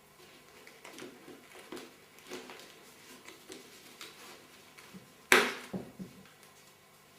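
Packaging being handled during an unboxing: soft rustling and light taps, with one sharp click or knock about five seconds in, followed by a few smaller taps.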